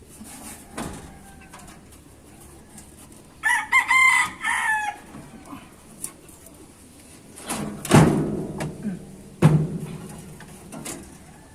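A rooster crows once, about three and a half seconds in, in a call of several steps lasting about a second and a half. Later come two loud knocks about a second and a half apart.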